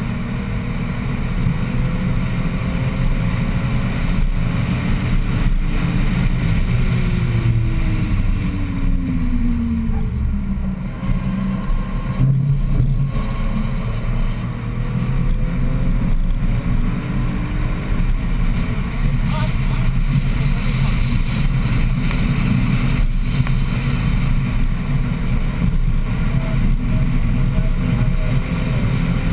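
BMW 1M's 3.0-litre twin-turbo inline-six running hard at track speed, heard from inside the cabin with wind and road noise. About seven seconds in, the engine note falls for a couple of seconds, then climbs again and holds strong through the rest.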